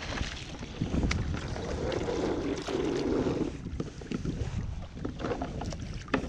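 Anchor line paying out over the side of a kayak as the anchor is dropped, with a rasping rush of rope about two seconds in and a few knocks on the hull. Wind buffets the microphone throughout.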